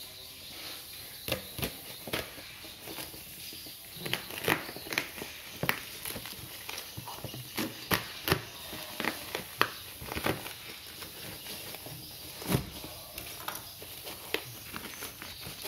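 Black bubble-wrap parcel packaging being cut with a knife and torn open by hand, crackling and crinkling in irregular sharp snaps.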